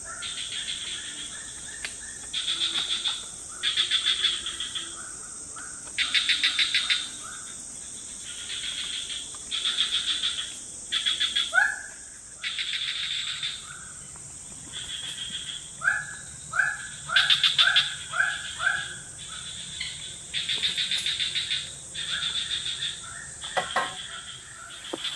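Tropical forest animal chorus: a steady high insect whine, with about a dozen short pulsed trilling calls repeating every second or two and runs of quick rising chirps.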